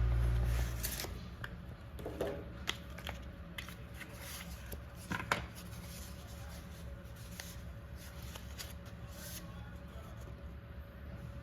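Irregular light clicks, taps and rattles of hands handling small parts. There is a faint steady hum underneath, and a low rumble fades out about a second in.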